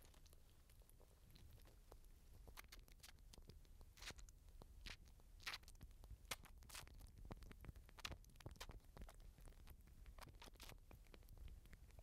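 Grey squirrel eating at close range: faint, irregular crunching clicks of gnawing and chewing, coming thickest in the middle.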